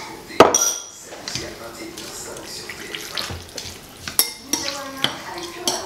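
Crockery and cutlery clinking: a small ceramic bowl knocks sharply against a soup bowl about half a second in, then chopsticks and a spoon tap the bowl as noodles are stirred, with another sharp clink about four seconds in.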